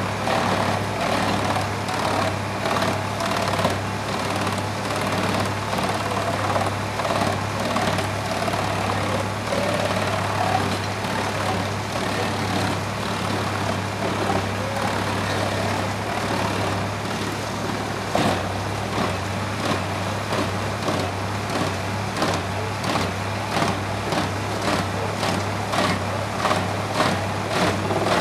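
Tractor-driven drum wood chipper running under load, chewing birch logs over the steady running of the tractor engine. From about two-thirds through, a rapid string of sharp cracks and knocks, about two a second, as the drum bites into the wood.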